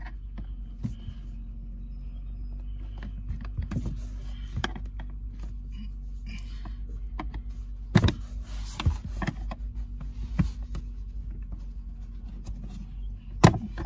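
Flathead screwdriver prying and scraping at a plastic push-pin rivet under a car's lower dash panel: small clicks throughout, with two sharp clicks, one about eight seconds in and one near the end, over a steady low hum.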